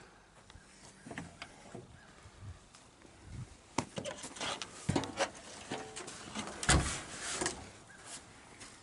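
Clicks and knocks of a truck hood's latches being released and the hood being handled, with one louder thump about seven seconds in.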